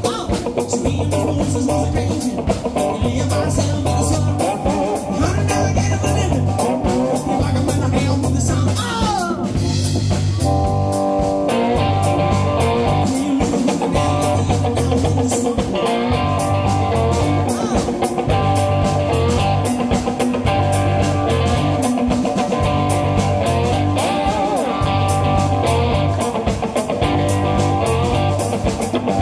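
Live blues-rock band: a slide cigar box guitar over a repeating bass guitar riff and drum kit, with gliding slide notes about nine seconds in.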